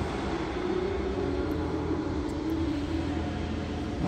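Steady machine drone with a low hum under it and a slightly wavering tone above, echoing in a large warehouse hall.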